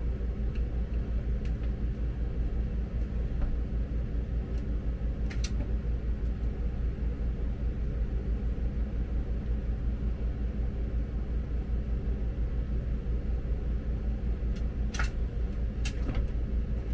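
A steady low mechanical drone with a fast, even pulse, like a running motor. It carries a few light clicks of a hand screwdriver backing out the screws of a plastic roof-vent trim ring, one about five seconds in and two near the end.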